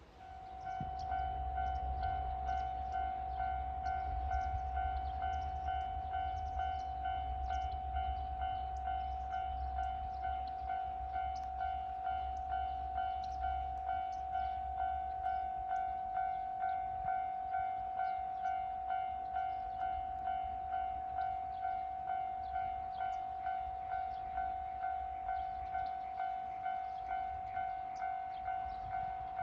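Railway level-crossing warning bell ringing, an electronic ding repeating just under twice a second. A low rumble sits under it through roughly the first half.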